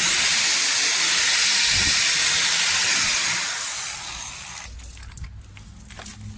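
A loud, steady hiss that fades out a little past the middle.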